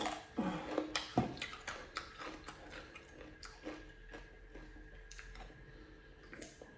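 Crisp, crunchy chewing of a mouthful of raw cucumber close to the microphone, a quick run of crunches in the first few seconds that thins into softer chewing.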